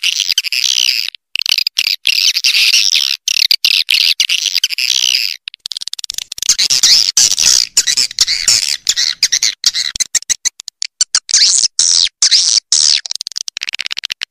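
Edible-nest swiftlet lure call: a loud, dense, shrill twittering chatter of swiftlets, chopped by many brief gaps, with a short break about five seconds in. It is a swiftlet-farming call track meant to draw swiftlets in to roost and nest.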